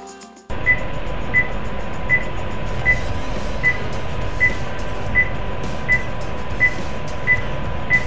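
Heart-rate monitor beeping: short high beeps about every three-quarters of a second, around 80 a minute, over a steady low hum and hiss.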